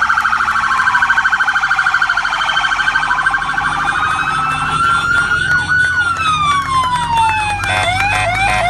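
Sirens of fire department vehicles in a slow-moving convoy, several overlapping: a rapid warbling yelp for the first few seconds, a slow wail that rises and then falls through the middle, and a fast repeating chirp starting near the end.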